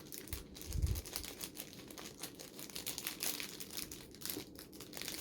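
Packaging crinkling and rustling in irregular bursts as items are handled and unwrapped, with a couple of soft low thumps about a second in.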